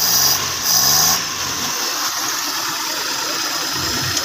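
Suzuki Mehran's carbureted three-cylinder engine idling as it warms up after a carburetor service, its mixture not yet set. Two short rising surges come in the first second, then it settles into a steady idle.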